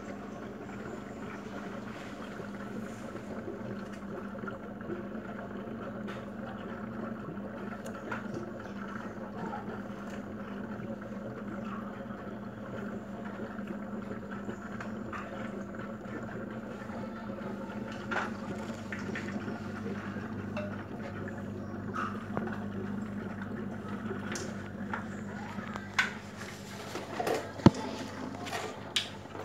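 Aquarium air pump humming steadily with water bubbling from the aeration. Near the end come a few sharp clicks or knocks, one much louder than the others.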